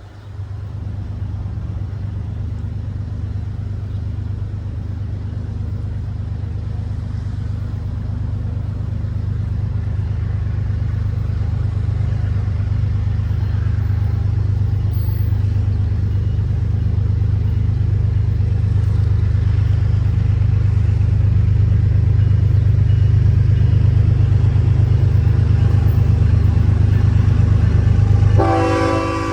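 Diesel locomotive rumbling as it approaches, a deep steady drone that grows louder. Near the end its air horn starts sounding.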